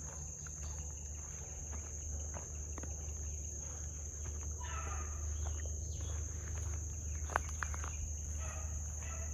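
Steady high-pitched chorus of insects in the field, over a faint low hum, with a few faint distant sounds near the middle and a couple of sharp clicks late on.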